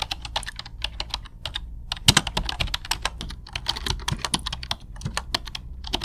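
Typing on a computer keyboard: quick, irregular key clicks, several a second, with a short pause a little before two seconds in, over a low steady hum.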